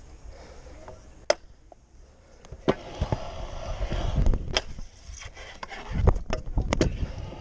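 Stunt scooter wheels rolling over concrete, the rolling noise building from about three seconds in, with a single sharp clack about a second in and a burst of clacks and knocks of deck and metal against the ledge about six seconds in as a trick is tried.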